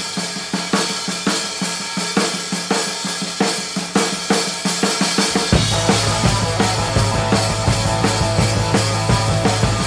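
Background music: a drum-kit beat alone at first, with bass and other instruments coming in about halfway through.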